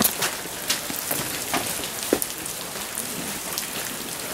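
Steady rain, with many sharp single drops striking an umbrella close overhead.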